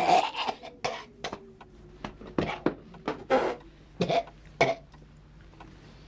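A man coughing in a hard fit: about nine sharp coughs over the first five seconds, then stopping.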